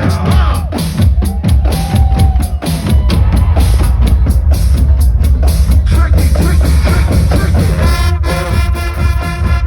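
Live band music driven by a drum kit: a deep, heavy kick drum and snare hits keep a steady beat, with a held chord ringing out near the end.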